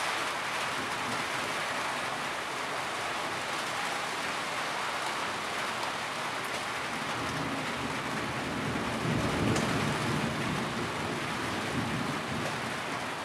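Steady heavy rain falling, with water running and dripping off a corrugated roof edge. A low rumble swells briefly about nine seconds in.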